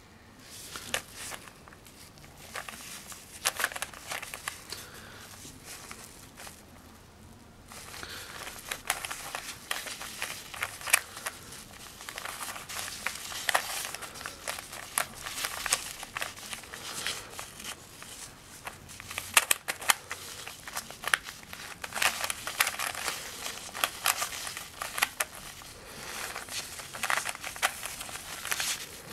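A cylinder-shaped plastic puzzle cube being twisted by hand: irregular plastic clicks and clacks as its layers turn and snap into place, over the rustle of cotton gloves handling it. A short pause comes about a quarter of the way in.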